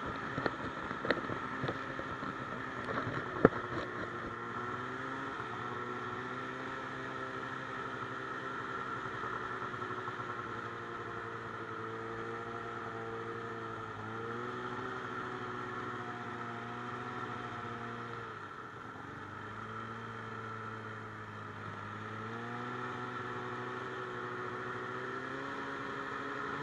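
Engine of a handlebar-steered off-road machine running under way at a steady cruise. Its pitch eases off about halfway through and again a little later, then climbs back near the end. A few sharp knocks come in the first few seconds.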